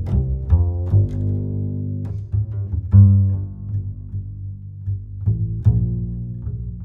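Background music: a plucked double bass line with bowed low strings, notes struck one after another at an uneven pace.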